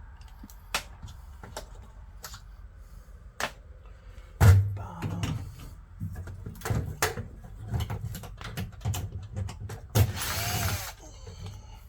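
Tool-handling and knocking sounds of HVAC service work: scattered clicks and clanks, a heavy thump about four and a half seconds in, and a cordless drill/driver running briefly just after ten seconds.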